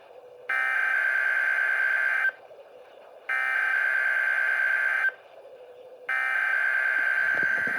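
NOAA Weather Radio SAME digital header for a required weekly test, played through a Midland WR120EZ weather radio's speaker. The header comes as three identical buzzy data bursts of about two seconds each, with a gap of about a second between them.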